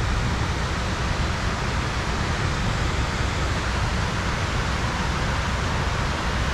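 Steady rushing noise of running river water, with a low rumble of wind on the microphone.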